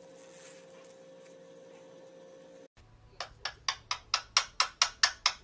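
A low steady hum, then a sudden cut, and a parrot launches into a fast run of short repeated calls, about four a second, getting louder.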